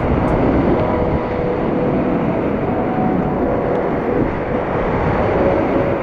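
Whitewater rapids rushing loudly and steadily around a kayak as it runs the rapid.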